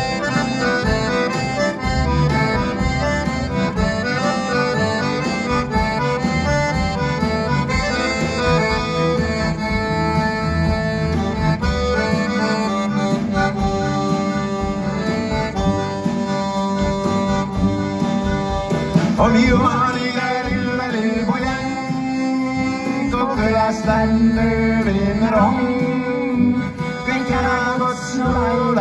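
Live folk band playing, led by accordion chords over a double bass. About two-thirds of the way through, a singing voice joins in.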